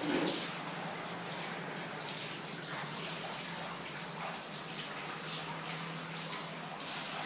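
Water running and splashing steadily while a wet dog is being washed by hand, with a few brief splashes over the steady hiss.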